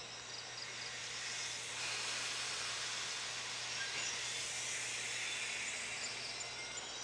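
Steady hiss from a JR Kyushu 811-series electric train at the platform as it gets under way, swelling about two seconds in. Insects chirp faintly near the end.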